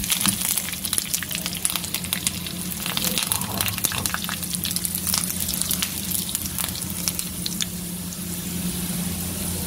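Curry leaves and golden-fried onion slices sizzling and crackling in hot oil in an aluminium frying pan: the tadka for dal. The crackling is densest in the first few seconds and thins out toward the end.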